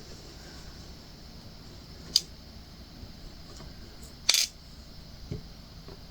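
A few small clicks and taps of diamond painting work: resin drills being picked up and pressed onto an acrylic ornament, with the loudest tap just over 4 seconds in, over a low steady hiss.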